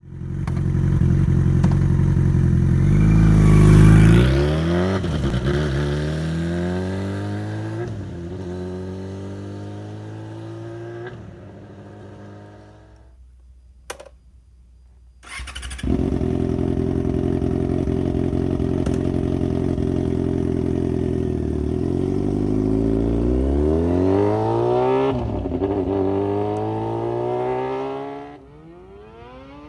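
Yamaha FZ6N's 600 cc inline-four running through a custom exhaust with a dB killer fitted. It accelerates hard, its pitch climbing and dropping through several upshifts as it fades into the distance. After a short quiet break it runs steadily, then accelerates away through the gears again and fades near the end.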